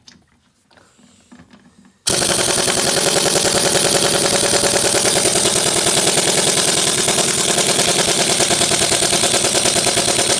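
Pneumatic impact wrench hammering rapidly and continuously on a stuck fastener, starting about two seconds in. The gun is at its maximum setting and the fastener does not break loose.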